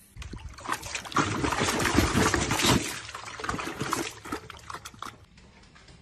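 Water splashing and sloshing in a bucket as a large dog plunges its head into it, loudest in the middle and dying down after about three seconds.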